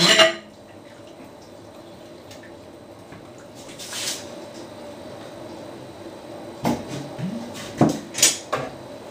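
Stainless steel brewing pot and its parts being handled: one loud metallic clank at the start, then a few more clanks and knocks near the end, over a faint steady hum.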